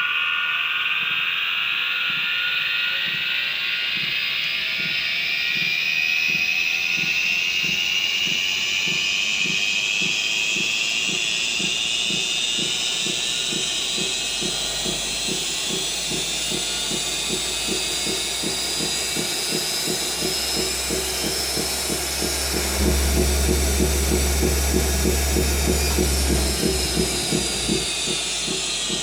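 Turdan DC drive motor of a BH Fitness T8 treadmill whining as the treadmill ramps up, the whine climbing steadily in pitch and starting to fall near the end, over a regular low beat. The electrical whine is the sign of bad motor bearings, and the motor is likely to fail.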